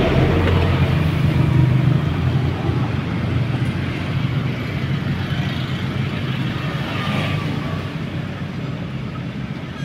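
CC 203 diesel-electric locomotive engine running with a steady low drone, slowly fading over several seconds.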